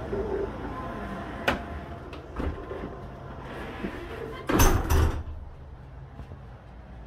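A couple of sharp knocks, then a loud clattering bang about four and a half seconds in, over a low rumble.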